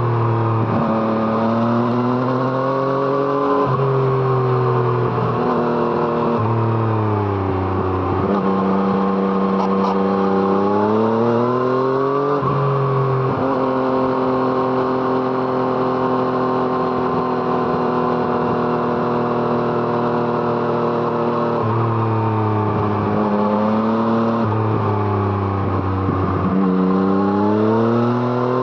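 2017 Yamaha MT-09's three-cylinder engine through an Arrow Thunder exhaust, ridden under acceleration. Its pitch climbs and then falls sharply at each gear change. Partway through it holds a long steady cruise, and near the end it pulls up through the gears again.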